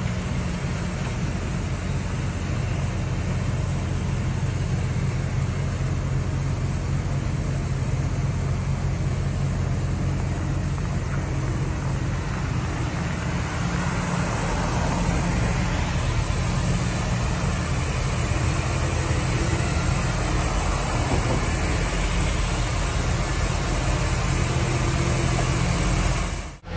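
John Deere loader with a snowblower attachment running, throwing snow from a snowbank into a dump truck, over the steady low drone of the loader and truck engines. It gets a little louder about halfway through.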